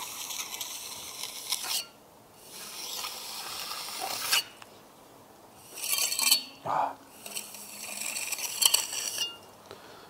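Steel tip of a pointed trowel scraping along fresh mortar joints in rough brickwork, shaping a bird's beak (double strike) pointed finish and scraping off the excess mortar. About four gritty scraping passes, each a second or two long, with short pauses between.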